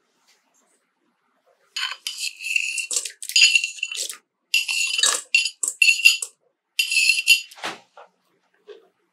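Diced frozen tangzhong (cooked flour-and-water paste frozen solid) tipped into a stainless steel KitchenAid stand-mixer bowl, the hard cubes clattering against the metal in three runs, with the bowl ringing.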